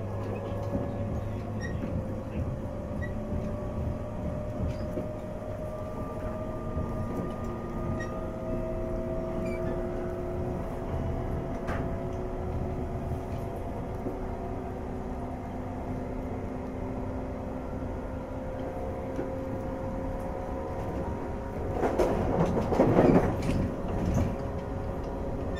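Running sound inside the motor car of a 485 series 3000-subseries electric train: a steady rumble of wheels on rail under a traction-motor whine whose pitch climbs slowly. Near the end, a louder rushing clatter swells for about two seconds.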